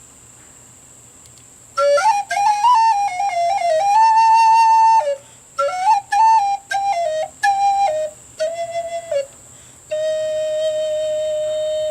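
A plastic pre-band fipple flute of the Flutophone type being played: short phrases of stepping notes with brief breaths between them, ending on one long held lower note.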